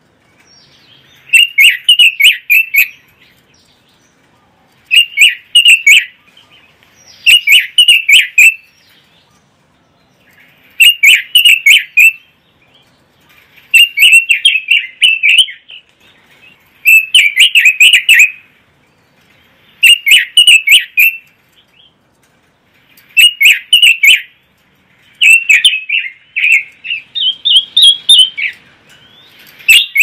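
Red-billed leiothrix (Pekin robin) singing in short, loud warbling phrases, each about a second long, repeated every two to three seconds. A higher, rising phrase comes near the end.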